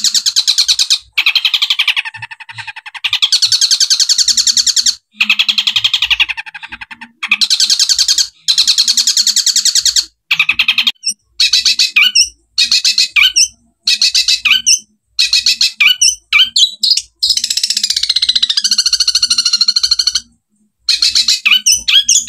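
Long-tailed shrike (cendet) singing in loud, fast chattering phrases a second or two long, separated by short breaks. The song is in the 'tembakan' burst style, mimicking Eurasian tree sparrow chatter. Near the end comes a longer, more varied phrase with sliding notes.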